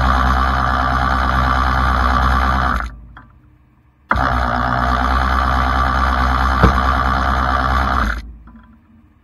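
Rollback wrecker's hydraulic winch running under load, pulling a pickup up the bed: a steady mechanical drone that stops about three seconds in and winds down. It starts again abruptly about a second later and runs until near the end.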